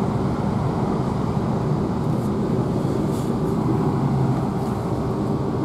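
Great Western Railway Class 165 diesel multiple unit running at speed, heard from inside the carriage by the doors. Its underfloor diesel engine and the wheels on the rails make a steady, even drone.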